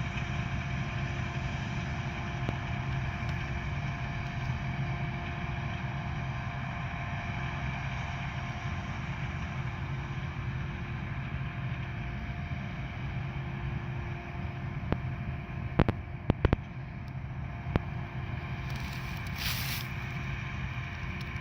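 Combine harvester running steadily while harvesting corn, a constant engine and machinery drone with a steady hum. A few sharp clicks come about three quarters of the way in, and a brief hiss near the end.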